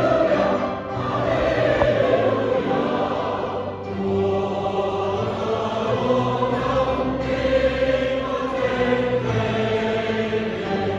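A choir singing a sustained, slow-moving hymn-like piece with instrumental backing.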